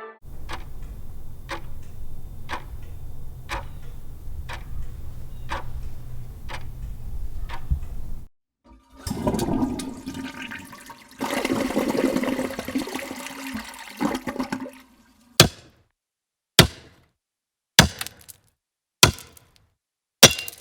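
A run of separate sound effects: first a low rumble with a sharp click a little under once a second, then about six seconds of rushing water from a toilet flushing, then single sharp knocks or steps about once a second.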